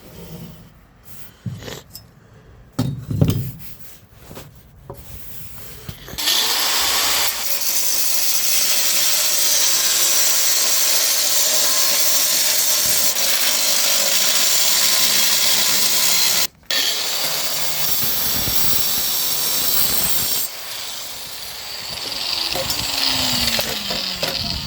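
Handheld power tool cutting metal: a few knocks and clanks, then from about six seconds in a long, loud, steady grinding hiss that drops out sharply once, and near the end the motor winds down, falling in pitch.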